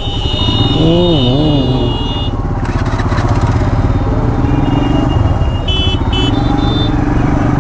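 Motorcycle engine running slowly in a crowded traffic jam, with other motorcycles around. A voice calls out briefly about a second in, and two short high beeps sound near the six-second mark.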